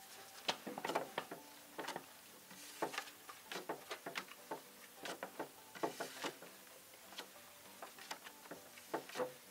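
Playing cards being handled and dealt onto a wooden card table: irregular soft snaps and taps, one to three a second.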